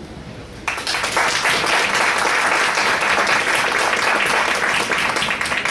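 Audience applauding, beginning suddenly about a second in as a dense patter of many hands clapping.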